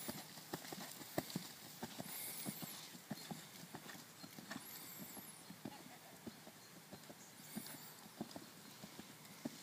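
Hoofbeats of a ridden horse trotting on a sand arena: a steady run of short, soft footfalls.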